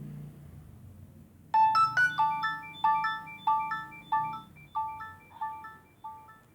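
Nokia 6300 mobile phone ringtone: a short melody of bell-like notes, each struck sharply and dying away quickly, starting about a second and a half in and growing gradually quieter toward the end.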